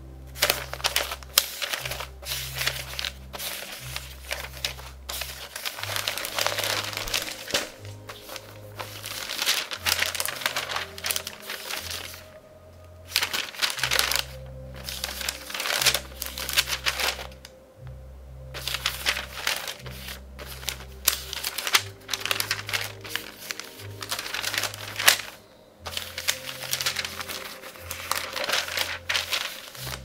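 Newspaper pages rustling and crinkling as they are handled and leafed through, in near-continuous uneven flurries that pause briefly twice. Soft background music plays underneath.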